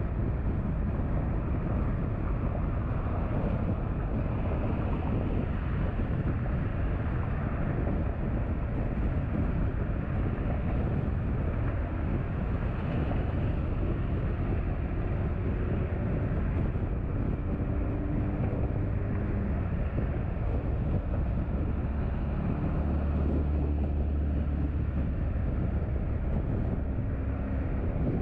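Car driving along: a steady rumble of tyres and engine, with a deeper engine drone swelling briefly about two-thirds of the way in.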